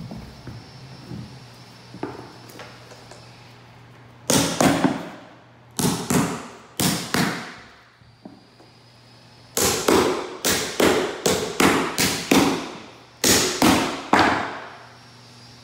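Hammer driving the nails of a wooden carpet tack strip into a hardwood floor: a series of sharp, loud blows in quick runs, starting about four seconds in, each ringing off briefly.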